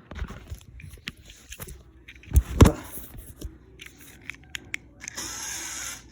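Small plastic toys being handled, with scattered clicks and knocks and a louder knock about two and a half seconds in. Near the end comes a steady hissing whirr lasting about a second.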